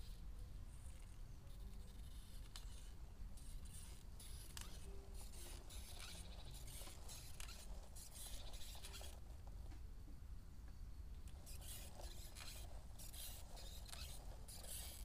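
Faint bursts of scraping and hissing as a 1:10 RC crawler's tyres work down a rubber-surfaced slope, over a steady low rumble.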